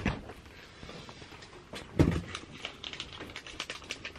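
Handling noise in a small enclosed space: a dull thump at the start and a louder one about two seconds in, with light irregular clicking and ticking between and after.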